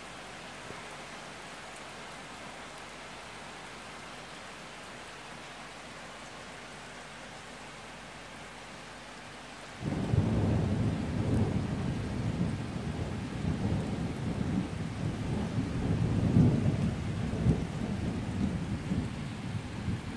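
Steady rain, then about halfway through a sudden loud clap of thunder that rolls on as a long, uneven rumble, swelling again a few seconds later.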